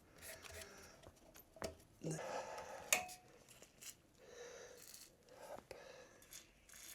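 Light clicks, taps and rustling of motorcycle parts and fittings being handled by hand, with a sharper click about three seconds in.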